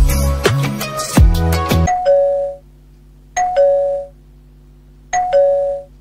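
Electronic music with a heavy bass beat stops about two seconds in. Then a two-note doorbell-style ding-dong chime, high then low, sounds three times, each opening with a sharp click: subscribe-button outro sound effects.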